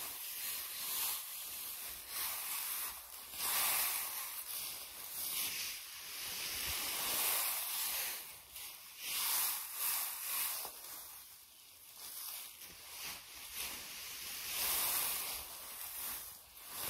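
Dry straw bedding being forked and tossed with a pitchfork: a rustling, crackling swish that swells and fades irregularly with each forkful.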